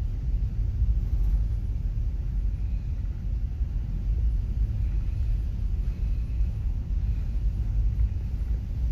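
Steady low rumble of a ferry's engines and propellers as it approaches its berth to dock.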